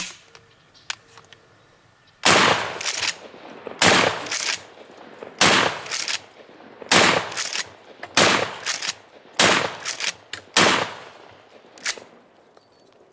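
Mossberg 500 12-gauge pump shotgun firing seven shots of number 8 birdshot, about one and a half seconds apart, with smaller clacks after each shot as the pump is worked. The birdshot is only denting the rusted steel barrel, not passing through.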